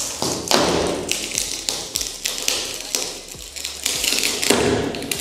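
Pry bar working at a sliding door's metal top rail: a rapid, irregular run of metal knocks, scrapes and taps, in an echoing empty metal box body.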